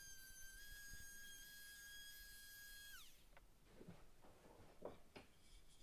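Excel 18V cordless trim router running with a steady high whine, then switched off about three seconds in, its pitch falling quickly as the motor spins down. A few faint knocks follow.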